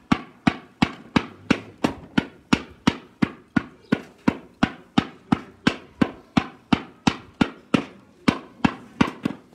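Wooden mallet beating a hand-made copper kettle body held over an iron stake, in a steady run of sharp knocks, about three a second, each with a short metallic ring.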